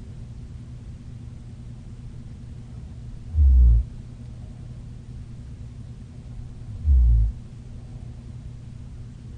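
A sleeping woman snoring: two short, low snores, about 3.5 and 7 seconds in, in an even rhythm over a steady low hum.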